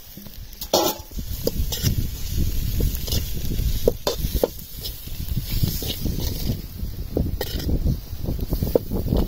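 Steel spoon scraping and clinking against a metal kadai as a dry-fish fry is stirred, the fry sizzling in the pan. Sharp scrapes and knocks come every second or so over a steady low rumble.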